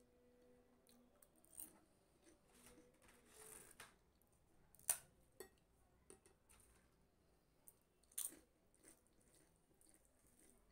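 Crisp pappad crackling and crunching as it is broken and eaten: a handful of sharp snaps, the loudest about five seconds in, with soft chewing between.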